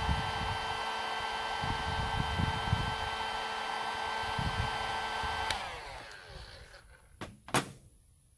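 Electric heat gun running steadily with a motor whine while it shrinks a solder-seal heat-shrink connector and melts the solder inside. It is switched off about five and a half seconds in and winds down, followed by two sharp clicks near the end.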